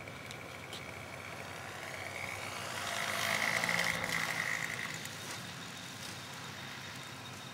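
Radio-controlled Model Tech Extra 300 aerobatic plane making a low pass: the steady whine of its motor and propeller grows louder from about two seconds in, peaks as it passes close around the middle, then fades as it flies off.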